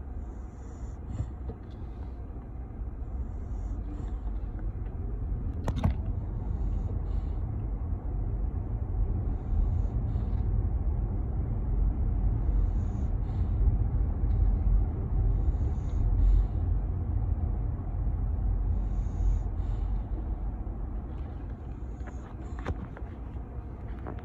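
Road rumble inside a moving car's cabin, growing louder through the middle and easing off again. A faint soft hiss recurs about every second and a half, with a couple of small clicks.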